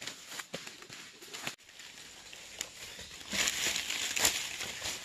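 Cinnamon bark being peeled off the tree: scattered crackles and snaps, then a denser, louder run of crackling and tearing from about three seconds in.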